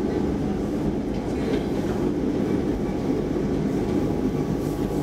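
Stockholm Metro C14 train running along the track, heard from inside the carriage: a steady low rumble of wheels and running gear.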